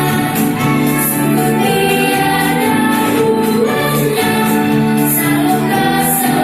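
Music with a choir singing long held notes over a steady accompaniment.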